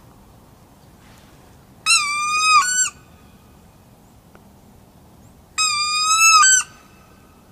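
Black retriever dog whining twice, each a high, drawn-out whine about a second long, close by.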